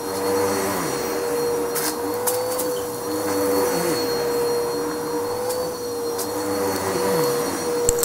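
Upright bagless vacuum cleaner running on thick shag carpet, pushed back and forth: a steady motor whine with lower tones that dip and rise with each stroke. A sharp click sounds just before the end.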